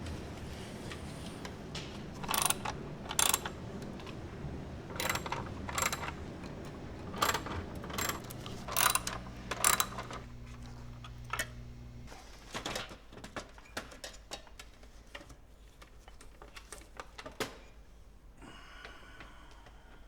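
Scattered sharp clicks and knocks of plastic and metal computer parts being handled and unfastened as an Apple Performa 580CD is taken apart. They come over a low steady hum, are densest in the first half and thin out after about twelve seconds.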